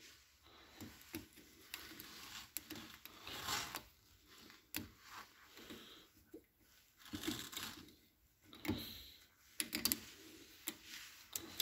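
Spiral retaining ring being slid by hand around the groove inside a metal bore: faint, irregular metal clicks and scrapes as it is worked into place.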